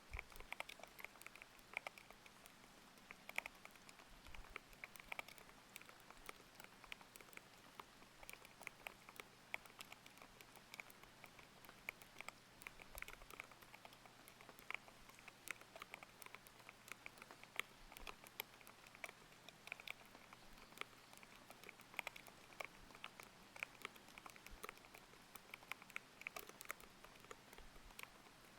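Thocky mechanical keyboard with Aqua King linear switches being typed on continuously in quick, irregular keystrokes, over a steady faint hiss of layered rain.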